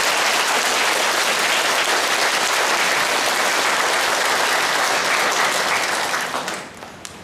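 A congregation applauding steadily, the clapping dying away about six and a half seconds in.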